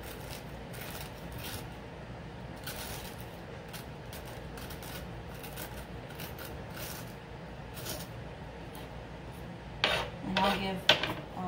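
Metal spoon scraping seeds and stringy pulp out of a raw spaghetti squash ring in short, irregular strokes. There are a few louder knocks near the end.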